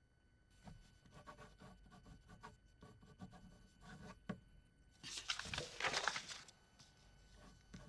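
Pencil scratching and tapping on a sheet of paper as a signature is written, with a sharper click about four seconds in, then a brief louder swish of noise around five seconds in.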